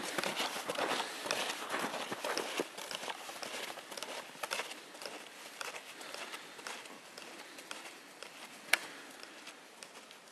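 Snowshoe footsteps crunching in snow, an irregular walking rhythm that slowly fades, with one sharp click near the end.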